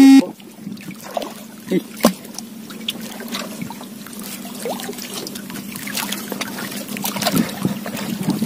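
Water lapping and trickling against the hull of a small outrigger canoe, with scattered light knocks and clicks, over a steady low hum.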